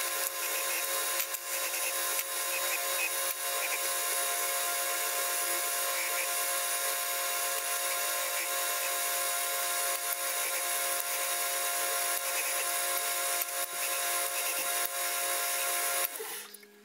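2x72 belt grinder running steadily with a workpiece held against the abrasive belt, a constant motor hum and grinding hiss. It stops suddenly near the end.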